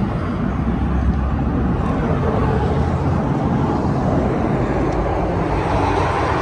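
Steady low rumble with a hiss over it, with no distinct events.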